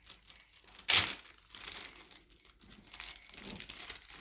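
Crinkling and rustling of something crinkly being handled, with a sharp crackle about a second in and softer rustles after it.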